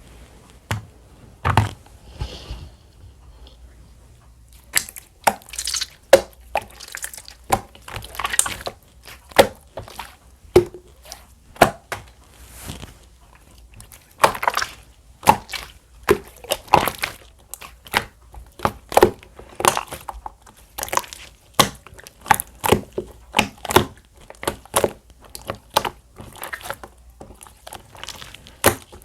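Clear light-green slime being squished and pressed by hand, giving a long run of sharp, wet pops and clicks, about one or two a second after a sparser start.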